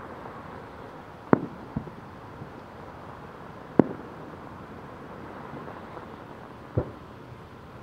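Distant fireworks going off: four sharp bangs a second or more apart, the loudest about halfway through, over a steady background hiss.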